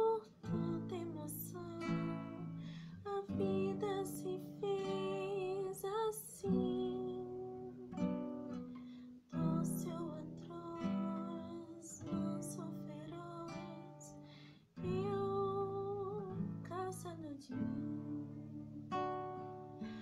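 A woman singing a slow ballad in phrases, accompanied by strummed chords on an acoustic guitar.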